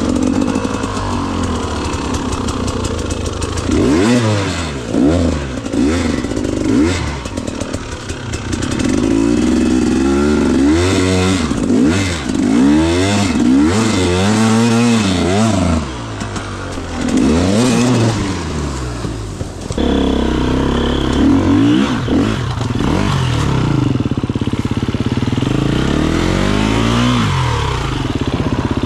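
KTM 250 EXC two-stroke enduro dirt bike engine being ridden, revving up and down over and over as the throttle is opened and closed.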